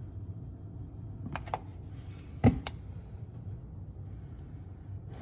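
Quiet handling noise over a low steady hum: a few light clicks and taps, the sharpest about two and a half seconds in.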